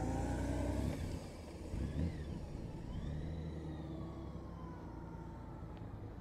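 Large touring motorcycle's engine running at low speed through slow tight circles. Its pitch rises through the first second, then it drops off to a quieter steady hum.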